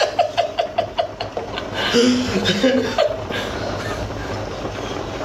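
A man laughing, a quick run of short ha-ha pulses in the first second and a half, then a short vocal sound about two seconds in. A steady low hum and hiss runs underneath and is all that remains after about three seconds.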